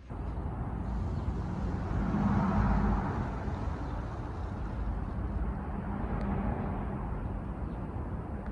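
Electric commuter train running past over the level crossing, a steady rumble of wheels on rail that swells about two to three seconds in.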